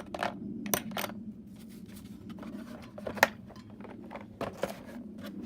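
Small metal tools and sockets clinking and clicking as they are handled in a tool chest drawer, with one sharper clink about three seconds in.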